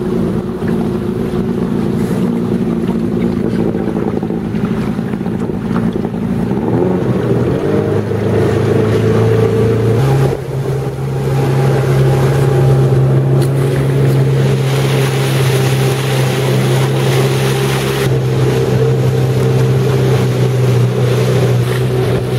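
Small open boat's outboard motor running under way. Its pitch climbs between about six and ten seconds in, then holds a steady higher note, with rushing water and wind on the microphone over it.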